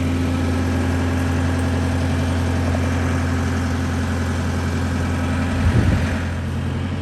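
Boat motor running steadily at low speed, a constant low hum, with a brief low thump about six seconds in.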